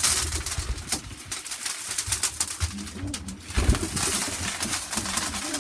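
Racing pigeons cooing softly in a loft, over steady rustling and scattered clicks, with a low thump about three and a half seconds in.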